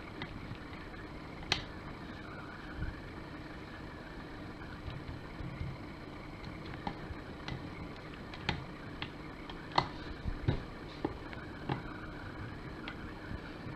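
Shredded kataifi dough being pressed and levelled in a ceramic tart dish by hand and with a plastic spatula: soft rustling with scattered light clicks and taps at irregular moments. A steady low hum runs underneath.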